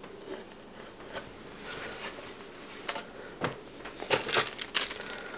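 Handling noise from unboxing: a shirt being set down and a hand rummaging in a cardboard box, giving light rustles and a few soft knocks. The rustling is busiest about four seconds in.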